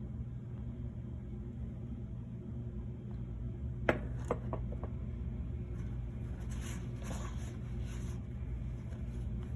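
Steady low hum with a sharp click about four seconds in, followed by a few lighter clicks and faint hiss, like a small bottle and cup being handled.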